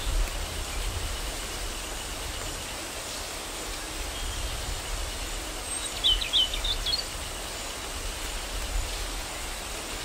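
Outdoor ambience: a steady hiss over a low rumble, with a bird giving a quick run of four or five short chirps about six seconds in.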